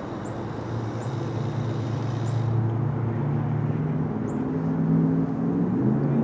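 An engine running steadily, its pitch and loudness climbing and easing a little over the seconds, with a few faint high chirps.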